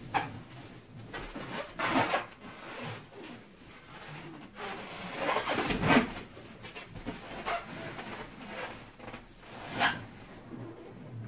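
A large latex balloon being pressed and sat on, with its rubber rubbing and scraping against fursuit fur and bedding. There are a few short, louder scrapes along the way and no pop.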